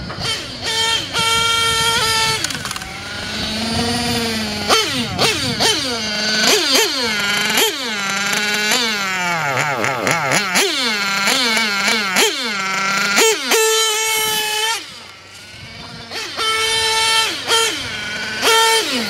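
Radio-controlled car's motor running hard, its high buzzing pitch sweeping up and down again and again as the car accelerates and slows. It holds a steadier pitch for the first couple of seconds and again near the end, and fades briefly about two-thirds of the way through.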